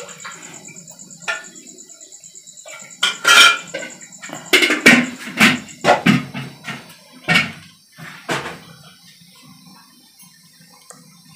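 Stainless steel cooking pots and a lid being handled and set down: a string of metal clanks and knocks, loudest and busiest in the middle few seconds.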